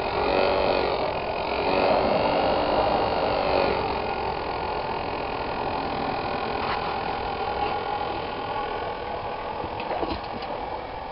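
Battery-powered electric blower fan on a homemade wood gasifier running with a steady hum. Its whine rises and falls in pitch over the first few seconds as its speed control is turned, then holds steady.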